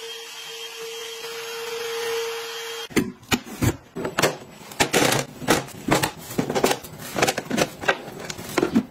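A cordless wet floor cleaner runs with a steady motor tone and hiss for about three seconds, then stops abruptly. After that come repeated clacks and knocks of clear plastic food storage boxes and their drain trays being handled and set down.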